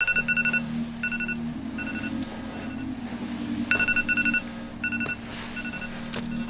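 iPhone alarm going off: clusters of rapid high beeps repeating about once a second, loudest at the start and again about four seconds in, over a low steady hum.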